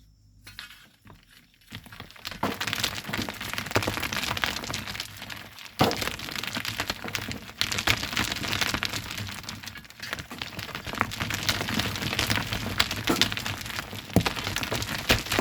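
Volcanic sand and stones being shovelled by hand: gritty crackling and pouring, starting about two seconds in, with sharp knocks of stone or tool now and then.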